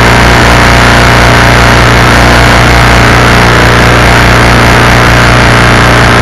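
Predator 212cc single-cylinder four-stroke engine running at a steady speed, loud and unchanging, as it drives the canoe through the water via its inboard shaft and propeller.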